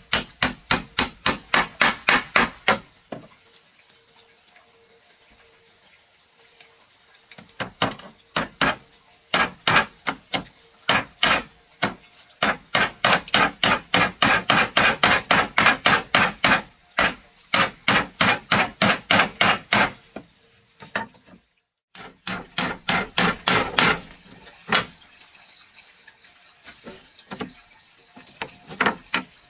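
A hammer striking wood in quick runs of blows, about three a second, with pauses between runs. A steady high-pitched insect drone runs behind.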